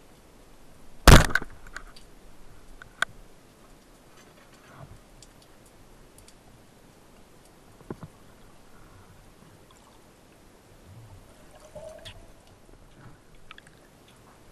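Band-powered wooden speargun fired underwater: one loud, sharp clack about a second in as the bands release. A sharp click follows about two seconds later, then a few faint knocks and clicks over a steady underwater hiss.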